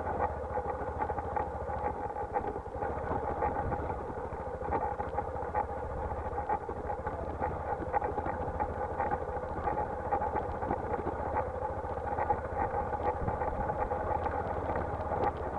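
Motorcycle engine running steadily while the bike rides a rough dirt lane, picked up close by a camera stuck to the bike's side cover, with frequent small knocks and rattles over it.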